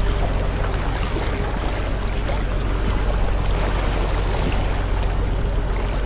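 Steady seaside ambience: waves washing on the shore under a constant low rumble.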